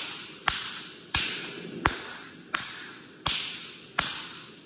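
Hand hammer striking red-hot steel on an anvil while forging a knife blade, six steady blows about 0.7 s apart, each followed by a short metallic ring.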